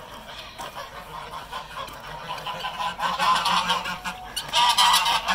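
A flock of geese honking from inside their coop, many calls overlapping and growing louder about three seconds in. The geese are clamouring to be let out.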